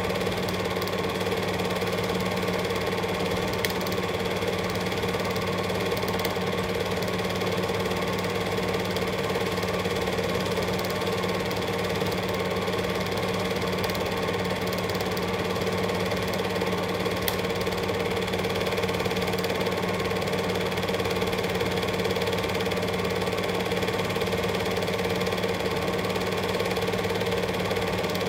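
Cine film projector running: a steady mechanical clatter of the film-advance mechanism over an even hum.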